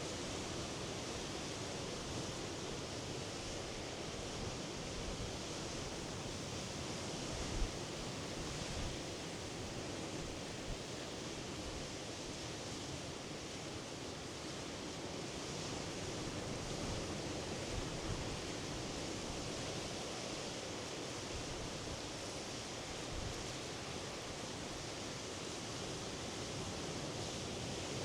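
Sea surf washing on the shore: a steady rushing wash that swells and eases slowly, with a brief low thump about eight seconds in.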